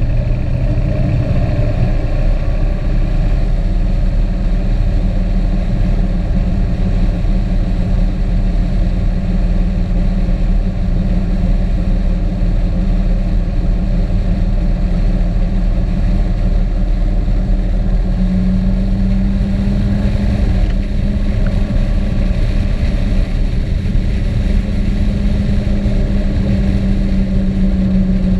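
Motor vehicle running steadily at road speed, its engine hum over a heavy low rumble; a steady engine tone grows stronger and climbs slightly in pitch about two-thirds of the way through.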